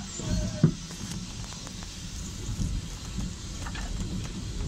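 A railway brake van rolling along the track: a steady low rumble with scattered crackles, and one short louder knock under a second in.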